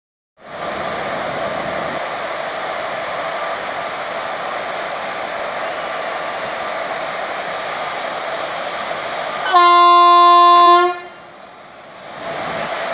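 Indian Railways electric locomotive standing with a steady running noise, then one loud horn blast lasting about a second and a half, near the end, signalling departure. The running noise drops briefly after the horn and then resumes.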